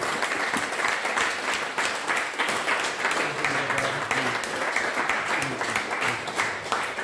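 A roomful of seated people applauding steadily, with dense overlapping hand claps and a few voices underneath.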